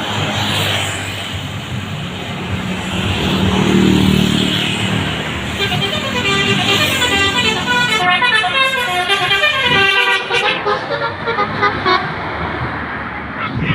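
A bus's basuri musical horn playing a quick run of stepped notes, from about six seconds in almost to the end, with a short break near ten seconds. Before the horn, a vehicle's engine and road noise swell as it passes.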